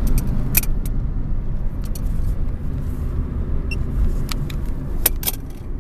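Lada Priora hatchback driving, heard from inside the cabin: a steady low engine and road rumble, with a few short sharp clicks scattered through it.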